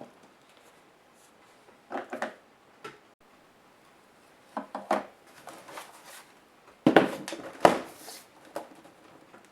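Toshiba L655 laptop being taken apart by hand: scattered clicks, knocks and light rattles of its plastic case and small parts being handled, with the loudest pair of knocks about seven seconds in.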